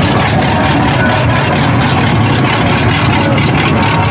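Lifted mud truck's engine running at a steady idle, close by.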